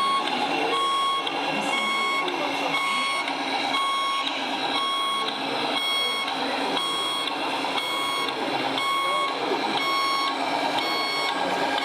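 Reversing beeper of a scale RC truck's sound module, repeating steady electronic beeps over a continuous background din.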